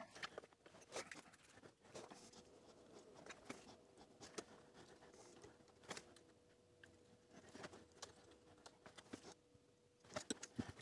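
Near silence, with faint scattered small clicks and taps from hands handling the LED ring assembly, solder wire and soldering iron while tacking joints onto the circuit board, over a faint steady hum.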